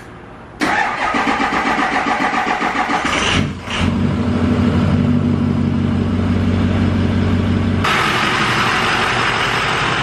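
Ford 6.0 Powerstroke V8 turbodiesel cold-starting: the starter cranks it laboriously for about three seconds on batteries that are nearly dead, then the engine catches and runs roughly at a steady idle.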